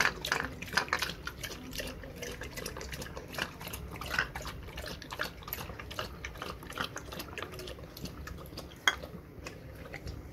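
A Labrador lapping and licking runny egg from a small ceramic bowl: quick, irregular wet laps, with the bowl clinking and knocking on the floor. A sharper click comes near the end.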